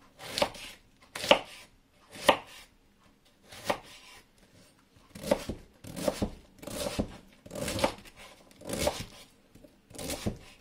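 Kitchen knife cutting through white cabbage and striking a wooden cutting board, about one cut a second.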